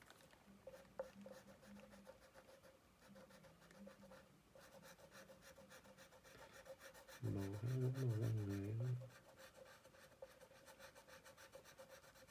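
Crayon scratching on paper in quick back-and-forth colouring strokes. About seven seconds in comes a low hum, voice-like, lasting under two seconds.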